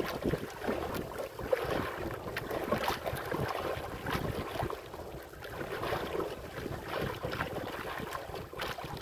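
Gusty wind buffeting the microphone over choppy sea, with waves splashing irregularly against the side of a small boat.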